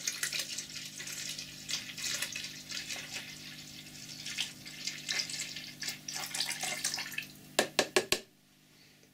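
Cillit Bang acid cleaner being poured into a plastic tub over a rusty axe head, splashing and foaming as the level rises. A few short sharp sounds near the end, then the pouring stops.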